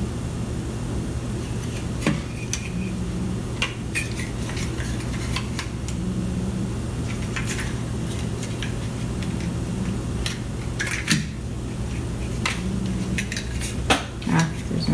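Plastic casing and internal parts of an infrared thermometer being handled and pried apart during disassembly: scattered sharp clicks and taps, some in quick clusters near the end, over a steady low hum.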